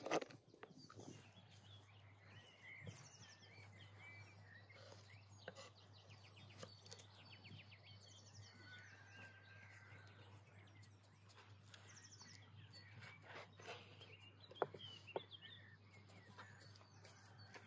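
Faint songbirds chirping and trilling in short scattered phrases. A few sharp knocks of a knife on a wooden board come near the end.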